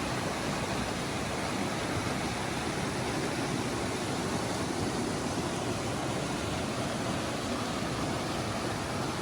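Mountain creek rushing steadily, a constant wash of flowing water.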